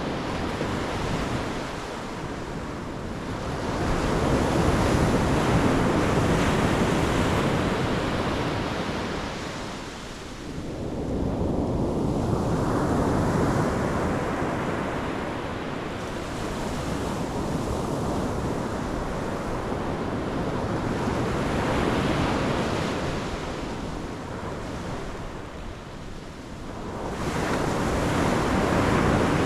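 Pacific Ocean waves breaking and washing on the shore, the surf swelling and ebbing in slow surges every several seconds, with some wind rumble on the microphone.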